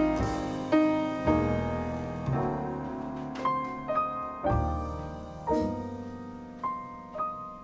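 Background piano music: slow notes and chords struck and left to ring, fading away between strikes.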